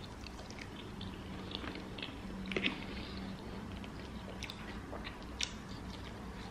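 A person chewing French fries close to the microphone: quiet, scattered mouth clicks and smacks, with a slightly louder one about two and a half seconds in.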